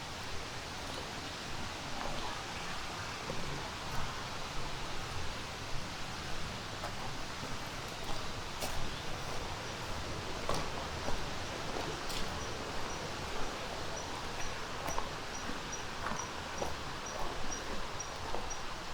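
Footsteps on a forest trail over a steady rushing hiss of flowing water, with a few sharper crunches. About two-thirds in, a high, thin chirp starts repeating about twice a second.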